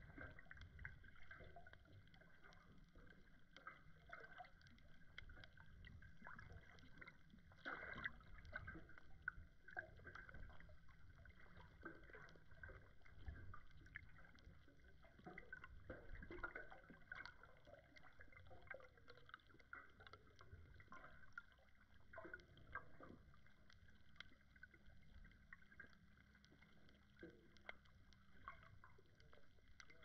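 Faint, muffled underwater ambience recorded by an action camera below the surface: a low rumble of moving water with many small scattered clicks and crackles, a few slightly louder ones around the middle.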